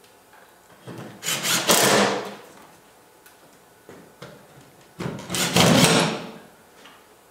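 Cordless drill driving screws into wood in two runs of about a second and a half each, a few seconds apart, with a couple of light clicks between them as the next screw is set.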